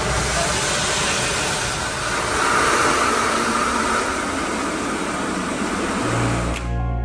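Automatic car wash heard from inside the car: a loud, steady rush of water spraying over the bodywork, swelling a little partway through. Music comes in near the end.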